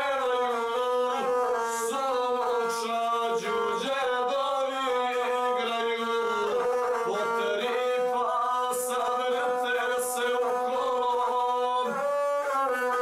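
A man singing a South Slavic epic song to his own accompaniment on the gusle, a bowed folk fiddle with a single horsehair string. The voice and the bowed string sound together without a break.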